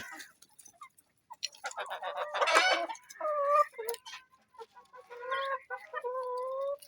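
Domestic hens clucking, a few short calls at first, then several drawn-out, steady-pitched calls in the second half.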